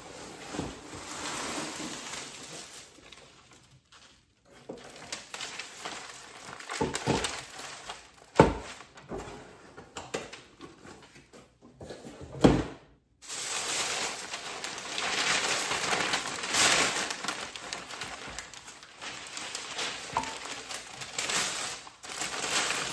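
Cardboard gift box being handled and tissue paper rustling and crinkling as it is pulled out and unwrapped, with a few sharp knocks partway through; the rustling grows denser in the second half.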